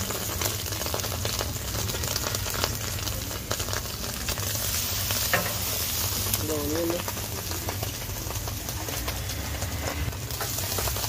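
Egg and vegetables sizzling in a hot wok while a metal wok spatula stirs and scrapes them, with frequent short clicks of the spatula against the pan.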